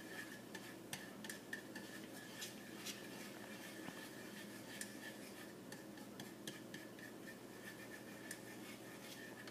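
Silicone spatula stirring and scraping a thick, heating sauce around a metal frying pan: soft irregular scrapes with light clicks.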